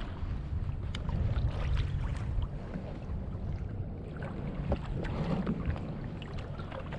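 Wind buffeting the microphone over small waves slapping and lapping against a kayak's hull on a choppy sea, with a few faint clicks among them.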